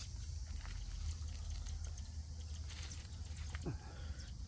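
Faint rustling and crackling of dry grass and brush as a man crawls under a barbed-wire fence, over a low wind rumble on the microphone. A brief falling voice sound comes near the end.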